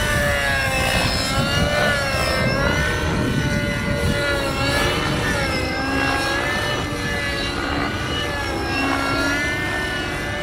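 Radio-controlled 3D aerobatic helicopter flying overhead, its motor and rotor note rising and falling again and again as it is thrown through manoeuvres. A steady low rumble lies underneath.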